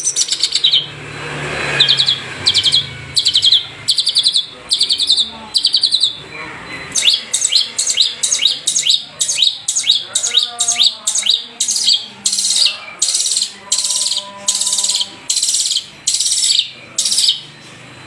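Long-tailed shrike (cendet) singing a long run of short, rapid, high-pitched trilled phrases, about two a second in the second half, some falling in pitch, with a few lower steady notes mixed in about halfway through.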